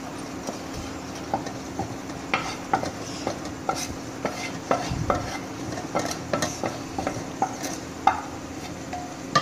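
Wooden spoon scraping fried minced chicken out of a bowl into a pan of thick sauce, with many short knocks of the spoon against the bowl. The sauce sizzles steadily on the heat underneath.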